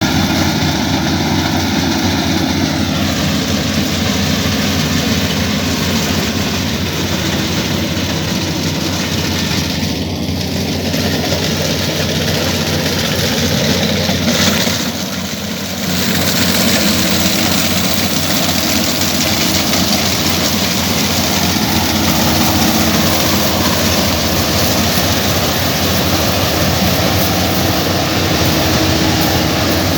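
Kubota DC-35 combine harvester running steadily, its engine note sliding down slightly a few seconds in and dipping briefly in loudness about halfway through.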